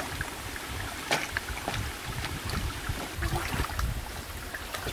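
A small rocky stream running and trickling, with a low uneven rumble and a few sharp clicks of stones knocking together underfoot.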